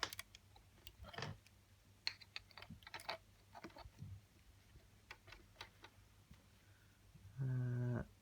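Scattered light clicks and taps of a camcorder and its cables being handled. Near the end comes a single short, low, steady buzz.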